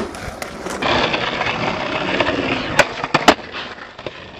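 Skateboard wheels rolling on rough asphalt, with three sharp clacks of the board about three seconds in.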